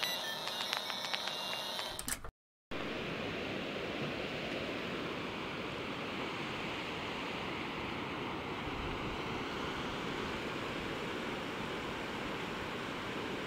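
A short intro effect with clicks and a tone, then a brief dropout about two seconds in, followed by the steady rush of sea surf washing onto a flat sandy beach.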